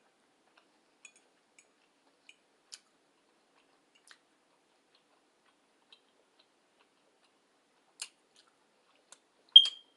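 Quiet, scattered faint clicks of someone chewing food, then one sharp clink of a metal utensil against a dish, ringing briefly, near the end.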